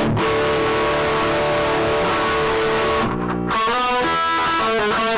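Electric guitar played loud through a 1967 Fender Bassman tube amplifier: a chord rings out for about three seconds, then a short run of single picked notes.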